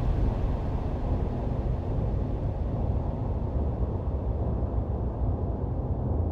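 A steady low rumbling drone, easing slightly in loudness over the first second.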